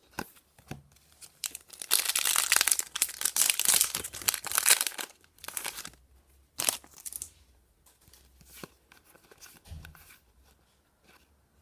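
A Yu-Gi-Oh! booster pack's foil wrapper crinkling and tearing open, in a dense stretch of ripping from about two to five seconds in, followed by a couple of short crinkles and light handling noises.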